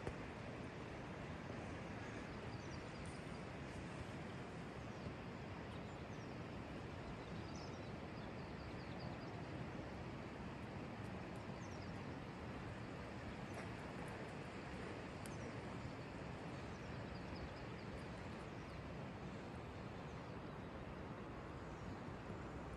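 Steady rushing outdoor background noise, with faint high bird chirps now and then, mostly in the first half.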